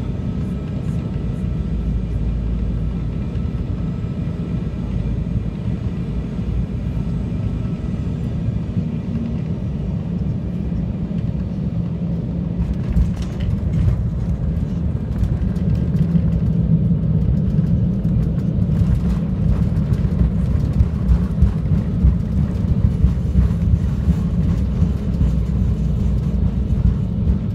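Cabin noise inside an Embraer E190 twin-jet airliner landing: a steady low rumble of engines and airflow, then about halfway through the wheels touch down and the rumble grows louder and uneven, with rattling and knocks as the plane rolls out along the runway.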